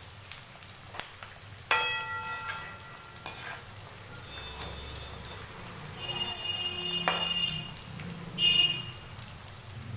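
Split chickpeas (chana dal) shallow-frying in a little mustard oil in a steel wok on low heat, with a steady sizzle. A perforated steel skimmer stirs them, knocking and scraping against the wok with ringing metallic tones, loudest about two seconds in and again near the end.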